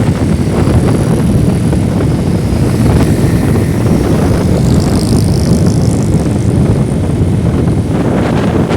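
Motorcycle on the move: wind rushing over the microphone together with engine and road noise, a steady loud rumble. A high-pitched whine rises above it briefly about five seconds in.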